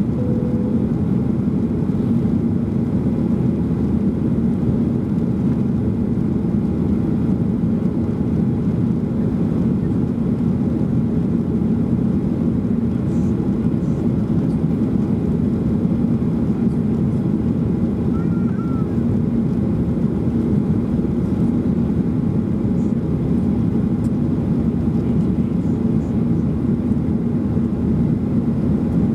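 Steady cabin noise of a Boeing 737-800 in flight, heard inside the cabin: the hum of its CFM56 jet engines and the rush of air along the fuselage, even and unchanging, with most of its weight low down.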